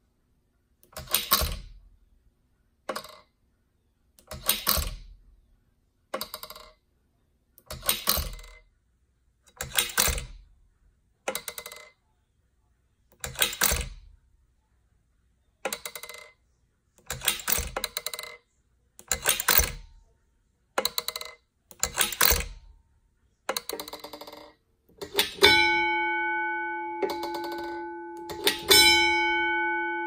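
The clockwork striking mechanism of a Gamewell 10-inch fire alarm bell runs in short bursts of clicking and clattering, one burst every second or two. About 25 seconds in the gong is struck and rings with a sustained metallic tone, then is struck again about three seconds later.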